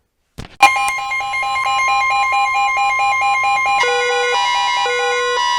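Electronic emergency alert tones: a steady high tone with a fast pulsing beep, about six a second, over it; near the end the beeps change to a slower pattern alternating between two notes, about two a second.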